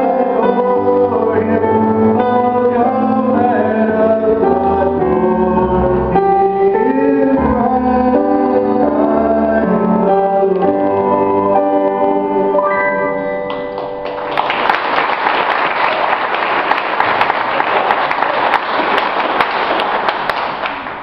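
A small choir singing in harmony to instrumental accompaniment, finishing the song on a held chord about thirteen seconds in. Audience applause follows to the end.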